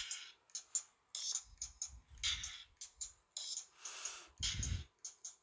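Sparse percussive beat of short clicks and hissy high hits with a few low thumps, like a hi-hat and kick pattern.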